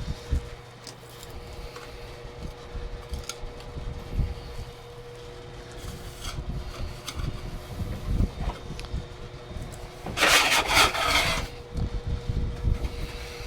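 Sheet-metal shop work on a thin aluminium part at a bending brake: scattered light knocks and clicks, then a harsh scraping rub lasting about a second, about ten seconds in.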